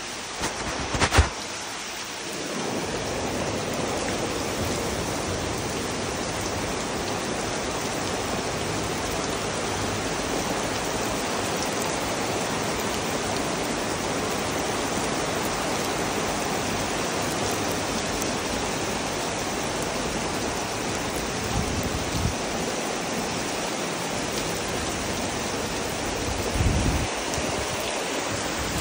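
Heavy rain pouring steadily onto palms, paving and patio umbrellas. There are a few sharp clicks about a second in and a few low thumps near the end.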